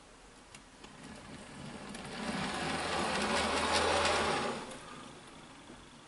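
OO scale Bachmann BR Standard Class 4MT tank locomotive model running past: its small electric motor and gears whirr and its wheels run on the rails, growing louder as it nears and fading as it moves away.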